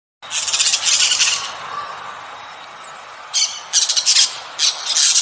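A bird squawking harshly: one long call lasting about a second near the start, then four short squawks in quick succession in the second half.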